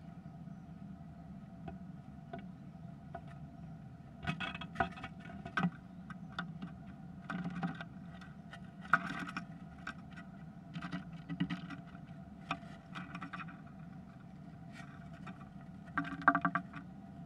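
A great tit's claws and beak scratching and tapping on the wooden floor and walls of a nest box: irregular clicks and scrapes in scattered clusters, loudest near the end, over a steady electrical hum.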